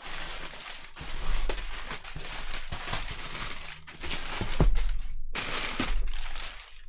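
Crumpled packing paper being pulled out of a cardboard box and tossed aside: steady crinkling and rustling, with a few dull thumps, the loudest about halfway through.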